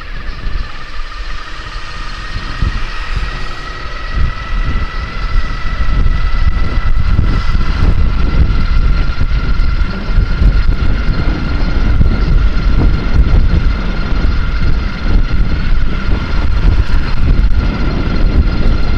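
Electric motor of an e-bike whining under way, its two-note pitch rising slightly as the bike speeds up, over wind buffeting the microphone and tyre rumble that grow louder about four seconds in.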